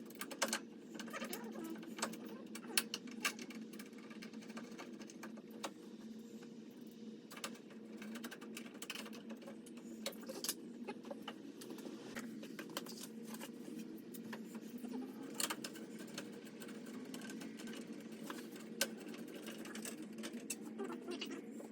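Scattered light clicks and small rattles over a steady low hum.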